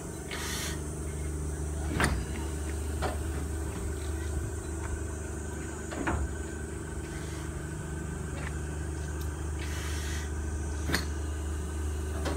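C12 tank steam locomotive being turned on a turntable: a steady low mechanical hum, with a few sharp metal clanks and two short hisses, one near the start and one about ten seconds in.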